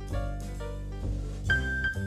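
Instrumental background music, a piano-led tune with notes struck at a regular pace of about two a second.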